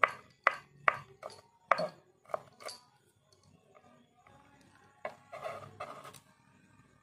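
Kitchen knife chopping garlic on a cutting board, sharp chops about two a second, then a pause and a short patch of softer, rougher noise about five seconds in.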